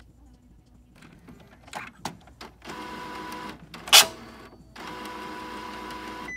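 Epson inkjet printer powering up with its print-head carriage blocked by a jammed pin: a few mechanical clicks, then the carriage motor runs in two stretches of about a second each with a loud sharp knock between them, the scratching sound of the jammed carriage that ends in error 0xEA.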